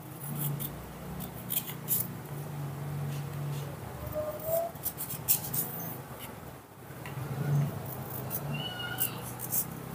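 A baby monkey giving a few short, thin, cat-like calls, one rising about four seconds in and a higher one near the end, over light sharp clicks of a knife slicing a pear by hand.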